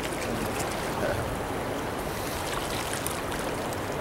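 River rapids rushing: a steady wash of flowing water.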